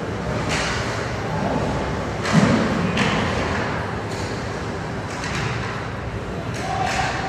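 Ice hockey play in an arena: one heavy thud about two seconds in, with several short scraping sounds around it.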